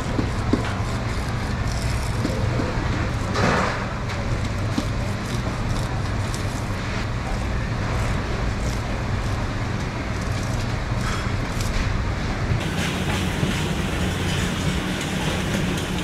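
Steady low mechanical hum under continuous background noise, with scattered light clicks and a short swishing sound about three and a half seconds in.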